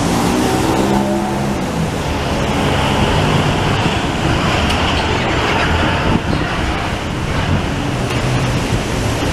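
Busy city street traffic: a steady roar of passing vehicles, with a droning engine-like tone that fades out after about a second and a half.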